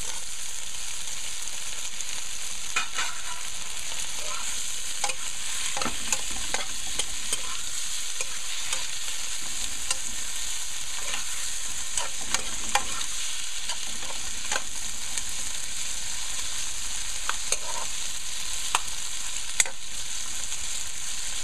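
Freshly added potato pieces sizzling in hot oil in a metal pan. A steady hiss runs throughout, and a metal spoon stirring against the pan gives scattered sharp clicks and scrapes.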